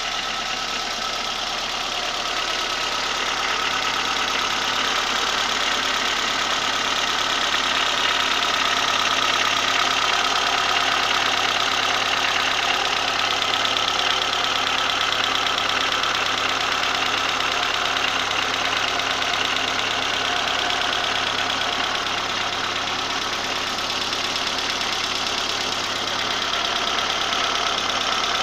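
Engine idling with a fast, steady ringing knock. The owner does not know what causes it.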